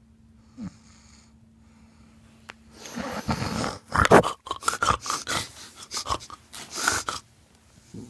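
Snoring: quiet for about the first three seconds, then a loud, irregular run of short snores with brief gaps for about four seconds.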